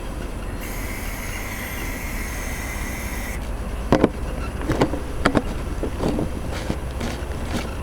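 A steady hiss lasting about three seconds, then a run of irregular sharp clicks and knocks as a homemade potato cannon is readied to fire, with no firing blast.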